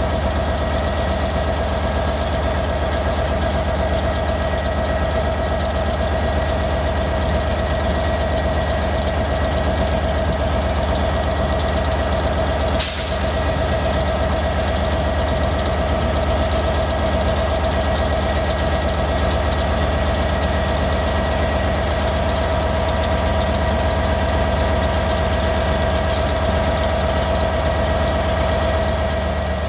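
ScotRail Class 158 diesel multiple unit idling, its underfloor diesel engines giving a steady drone with a steady higher whine over it, with a brief dip about halfway through.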